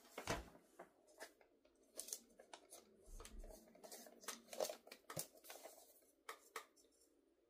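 Faint, intermittent rustling and crinkling of wrapping paper as a gift is handled and unwrapped, in short scattered bursts.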